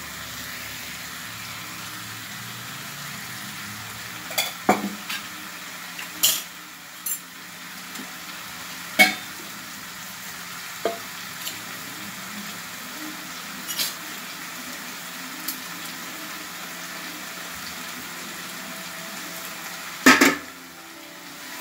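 Masala-coated sardines frying in oil on a cast-iron dosa griddle: a steady sizzle with scattered sharp pops, and a louder crackle near the end.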